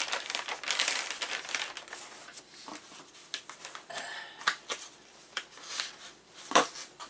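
Packaging around a circuit board being handled: irregular crinkling and rustling with small clicks, and one sharp knock about six and a half seconds in.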